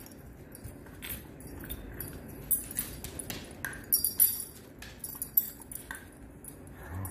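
Two dogs play-wrestling on a wooden floor: scattered scuffles and knocks, with collars jingling throughout.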